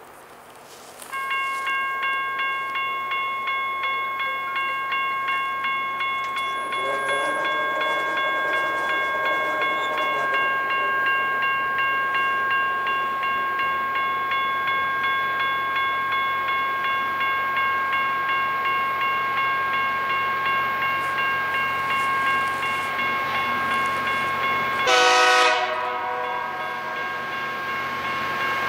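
Railroad grade-crossing bell starts ringing about a second in and keeps up a steady run of rapid repeated strikes. A fainter horn sounds in the distance about seven seconds in. Near the end the approaching rail-grinder train gives a short, loud horn blast, and the noise of the oncoming train begins to swell.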